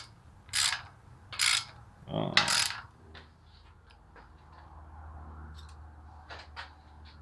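Ratchet wrench tightening the cylinder head nuts on an air-cooled VW engine: three bursts of ratchet clicking about a second apart, each a quick back-swing. After that, only a few faint clicks over a low hum.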